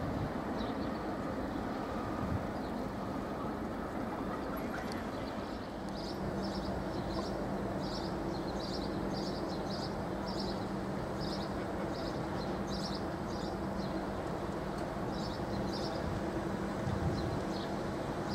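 Low, steady rumble of the passing container ship Maersk Newcastle, with a low hum setting in about six seconds in. A bird chirps repeatedly in quick series from about five seconds in until near the end.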